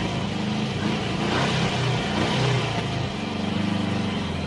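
Car engine running with road noise, heard from inside the cabin of a moving vehicle.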